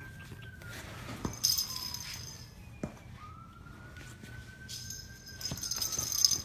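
A small toy bell jingling in two spells, about a second and a half in and again near the end, with a few light knocks as a cat bats the toy across a wooden floor. A faint siren slowly rises and falls twice in the background.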